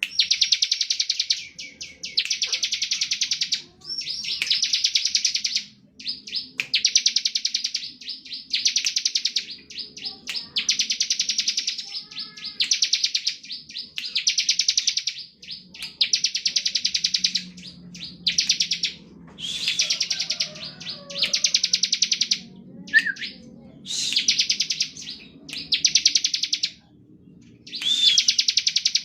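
Bar-winged prinia (ciblek) singing its rapid buzzing 'ngebren' song: dense, high trilled phrases of one to two seconds, repeated with short breaks.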